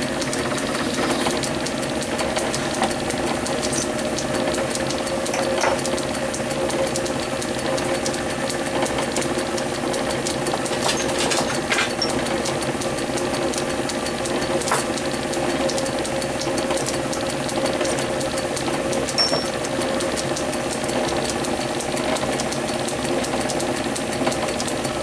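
Small metal lathe running steadily, its motor and gear train giving a constant whine and hum, with a few short clicks along the way.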